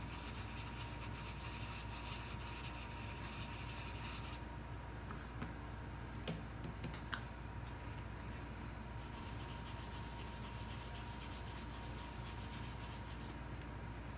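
Soft rubbing and scratching of a small applicator brush working powder blush into an EVA foam piece, over a steady low hum with a faint high whine. A few light clicks come around the middle.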